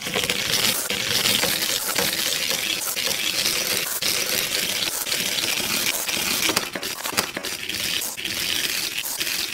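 Diecast metal Take-n-Play toy train rolling down a plastic spiral track, a continuous fast clatter of metal wheels on the plastic ramps.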